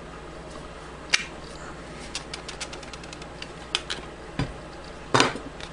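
Hand hole punch working through the sheath's layers to make rivet holes: a sharp click about a second in, a run of small clicks, a dull thump, then a cluster of louder knocks near the end.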